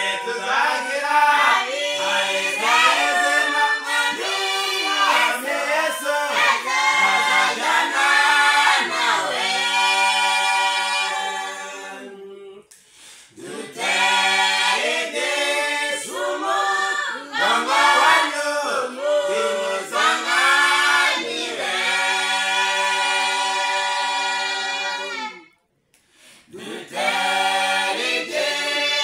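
A small mixed group of men and women singing a cappella in harmony, with long held notes. The singing dips briefly about twelve seconds in and breaks off for a moment about twenty-five seconds in before starting again.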